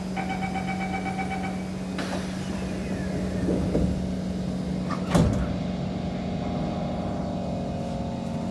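Inside a Kawasaki C151 metro train fitted with permanent-magnet synchronous traction motors: rapid door-closing warning beeps for about two seconds, the doors shutting, then a loud thump about five seconds in as the train starts to pull away, over a steady carriage hum. Steady traction-motor tones set in as it moves off.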